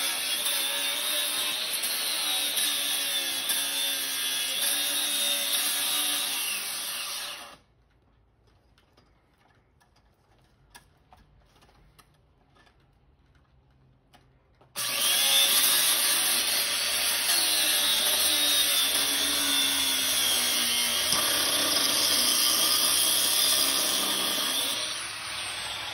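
Angle grinder with a cutting disc cutting through the steel wire and frame of a chain link fence panel: a steady high motor whine that wavers as the disc bites. The sound cuts off abruptly about seven seconds in and comes back about seven seconds later, then drops in level near the end.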